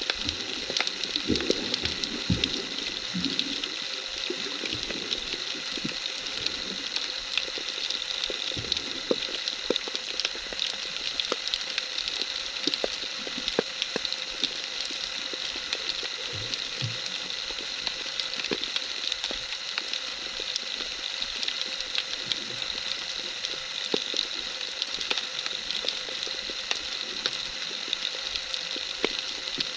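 Underwater ambience picked up by a camera in its waterproof housing: a steady hiss with many small sharp clicks and crackles, and a few low knocks in the first few seconds.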